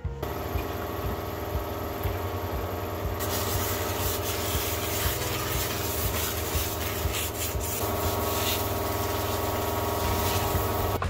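Handheld steam cleaner jetting steam: a steady hiss over a low hum, the hiss growing stronger about three seconds in.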